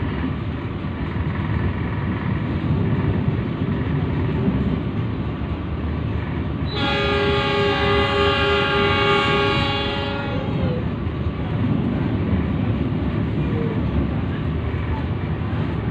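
Passenger train running, heard from inside a carriage: a steady low rumble of the wheels on the track. About seven seconds in, the train's horn sounds one long steady blast of about three and a half seconds.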